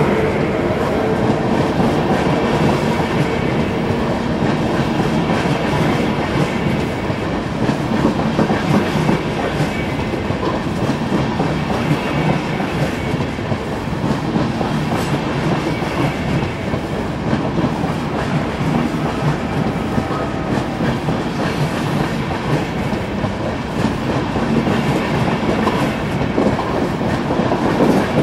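A train running on the tracks: steady wheel-on-rail rumble with rapid clicking of the wheels over the rails.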